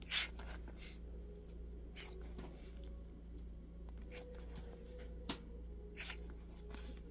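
Rubber RC truck tire squeaking against its plastic rim as gloved hands twist and flex it to break the heat-softened glue. There are four short squeaks, about two seconds apart, each falling in pitch.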